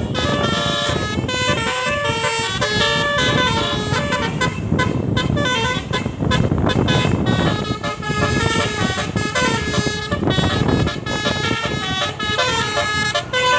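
A tour bus's roof-mounted multi-trumpet telolet musical air horn playing a tune in Minang style, its notes stepping from one pitch to the next without a break, over a low rumble.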